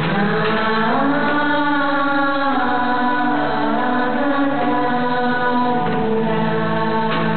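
Stage music with a voice singing long, held notes that glide from one pitch to the next.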